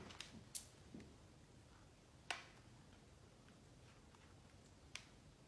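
Near silence, with four faint, short clicks and taps of a utensil and dressing bottle as sauce is spread over a tortilla in a small pan.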